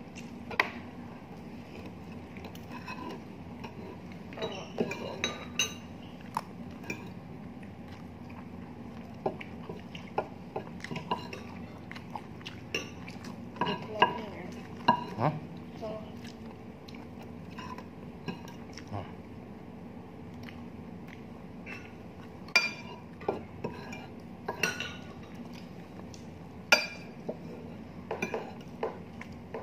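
Metal fork and spoon clinking and scraping against a plate while eating, in irregular light taps, with a few sharper, louder clinks in the last third.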